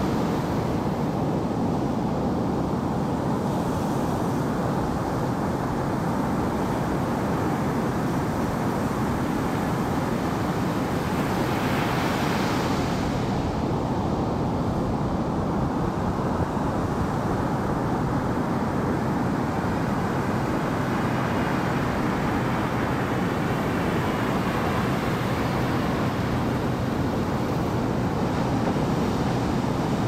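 Ocean water washing steadily, deep and even, with one wave surging louder about twelve seconds in.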